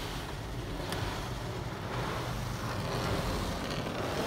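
Water jets from a WashTec SoftLine 2 tunnel car wash's nozzles spraying steadily onto the car's windscreen and side windows, heard from inside the cabin, with a low steady hum underneath.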